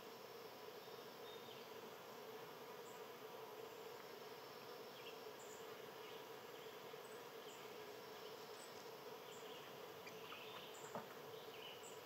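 Faint outdoor nature ambience: a steady low hum with scattered faint, short high-pitched chirps, and a single soft click about eleven seconds in.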